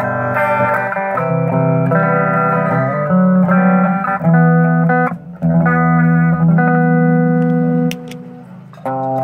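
Electric guitar played through an ADL Compressor Sustain pedal: held notes and chords ringing on with long, even sustain. About eight seconds in the pedal's footswitch is pressed and the sound drops quieter for about a second before the guitar comes back in.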